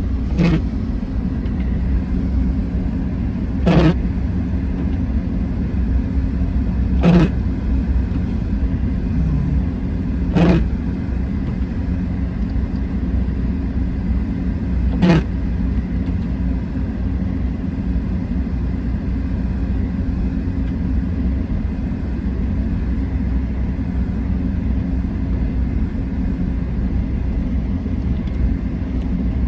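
Car driving, heard inside the cabin: a steady low rumble of engine and road noise with an even hum. A short knock comes about every three seconds through the first half, five in all.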